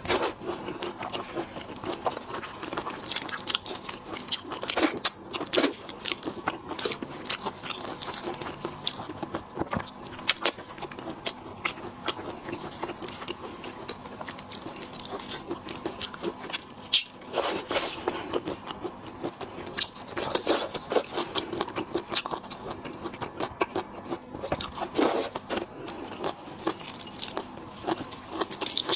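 Close-miked eating of lobster and shrimp: irregular crunches, cracks and scrapes of shell and meat, with chewing. The sounds thin out for a few seconds midway.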